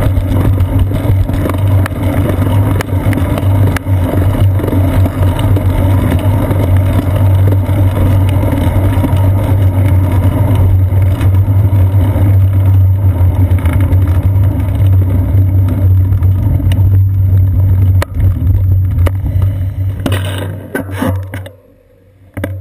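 Steady wind and road rumble picked up by a seat-post-mounted GoPro camera as the bicycle rides along. The noise falls away sharply near the end as the bike slows to a stop.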